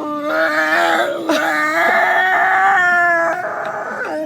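A dog making long, drawn-out whining vocalisations, several held notes in a row with brief breaks, out of joy and excitement.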